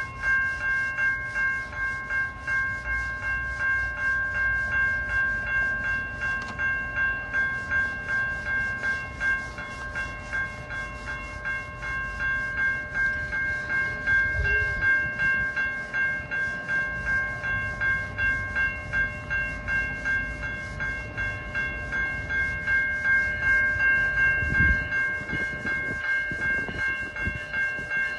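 Railroad crossing bell ringing steadily, about three strikes a second, at an even level, over a low rumble as the train approaches.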